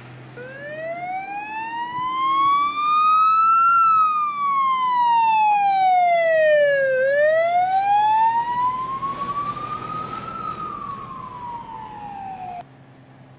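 Fire truck siren on a slow wail. It rises and falls in pitch twice, each sweep taking a few seconds, and is loudest in the middle as the truck passes close. It cuts off abruptly near the end.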